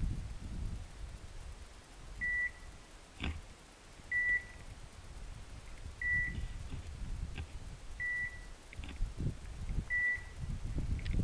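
Dog beeper collar on a pointer sending five short, evenly pitched electronic beeps, one about every two seconds, over the rustle of brush.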